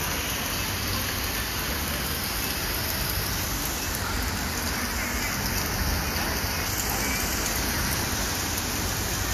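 Heavy rain pouring steadily onto wet paving, an even, unbroken hiss.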